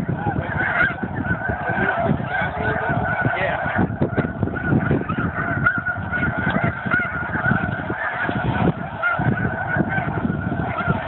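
A flock of snow geese calling: many high, yelping honks overlapping in a constant din, with a choppy low rumble underneath.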